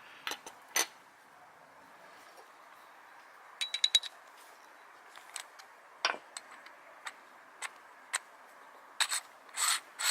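Small metal parts clicking and clinking as they are handled: a Jacob's drill chuck and its threaded adapter being fitted together. There is a quick run of about five metallic clicks midway, and a series of short scraping, ratcheting strokes near the end as the parts are turned and tightened.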